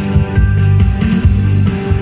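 Yamaha Tyros 4 arranger keyboard playing a MIDI-file band arrangement with a steady beat, with keys being played along on it.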